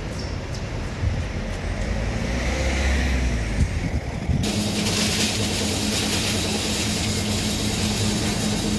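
Street traffic: a car passes with a low rumble. About four seconds in the sound cuts abruptly to a steady hum with hiss.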